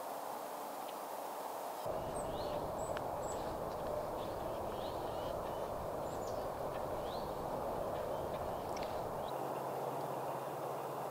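Small birds chirping in short, quick calls over a steady distant hum, with a low rumble that starts suddenly about two seconds in and stops near the end.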